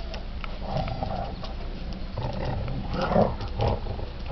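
Dogs grunting and growling in rough play, in several short bouts, the loudest about three seconds in.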